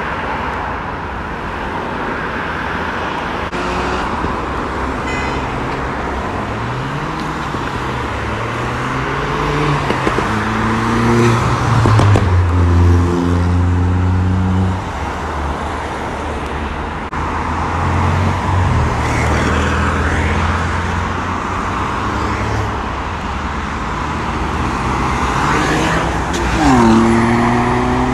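Cars accelerating hard along a dual carriageway over steady traffic and tyre noise, their engines climbing in pitch and stepping through the gears. It builds for about ten seconds from near the start, and near the end another car revs up through a sharp gear change.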